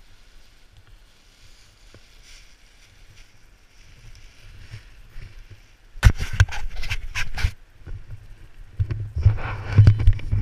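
Faint rustle and low rumble on an action camera's microphone. Then, about six seconds in, loud scraping, knocking and crackling as a gloved hand grips and turns the camera right against the microphone. More rubbing and a heavy low rumble follow near the end.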